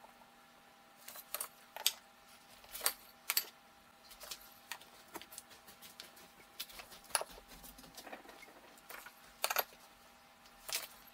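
Ceramic subway tiles clinking and clacking as they are handled, set against one another and pressed onto the wall. About a dozen short, sharp clicks come at uneven intervals over a faint steady hum.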